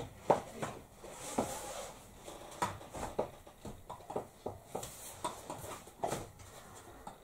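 Irregular clicks and knocks of a roller blind's tube and end fittings being pushed and tapped into their wall brackets.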